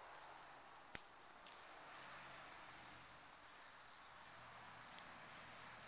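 Near silence: faint outdoor ambience, with a single sharp click about a second in.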